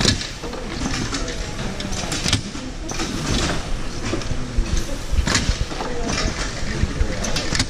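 Automatic carousel screen-printing press running: steady machine noise broken by several short air hisses.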